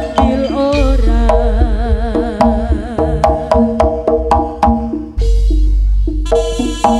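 East Javanese jaranan ensemble playing: hand drums and struck metal keys in a quick, even run of notes, with a wavering, vibrato-laden melody on top. Two deep gong-like swells sound underneath, one about a second in and another near the end.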